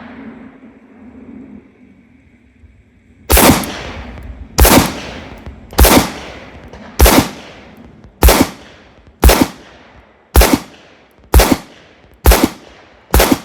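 Handgun fired ten times at a steady slow pace, about one shot a second and getting slightly quicker near the end, each report trailing off in a short echo.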